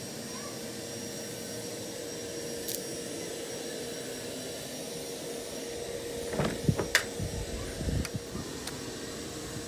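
Vacuum cleaner motor running steadily with an even drone, used to vacuum out a truck. A few knocks and bumps come about six to eight seconds in.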